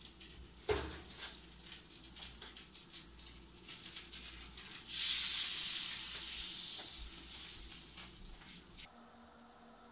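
Melted margarine sizzling in a hot pan just out of a 425°F oven. The sizzle starts suddenly about halfway through, fades slowly and cuts off abruptly near the end. Earlier there is a thump and some light clatter.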